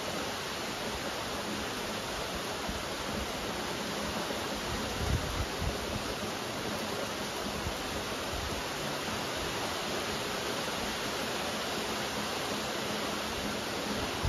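Steady rain falling, a dense, even hiss with no let-up, with a couple of brief low thumps about five seconds in.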